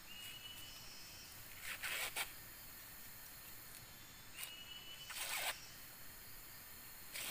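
Husks being torn by hand from an ear of fresh corn: short dry rips about two seconds in, again about five seconds in, and once more at the end.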